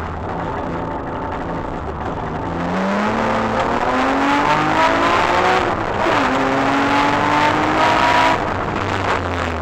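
BMW E36's engine heard from inside the cabin, accelerating hard. Its pitch climbs, drops sharply at an upshift about six seconds in, climbs again, then falls near the end.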